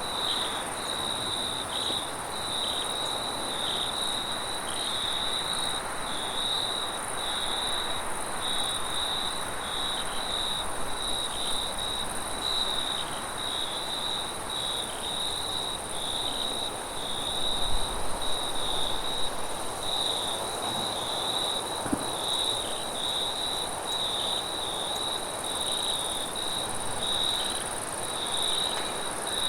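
Crickets chirping in a dense, continuous chorus that pulses several times a second, over a steady rush of wind that swells louder a little past halfway.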